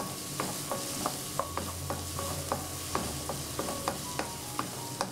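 Diced bell peppers and onion sizzling in oil in a non-stick wok on high heat. A wooden spatula stirs them and taps and scrapes against the pan about three times a second, each tap ringing briefly.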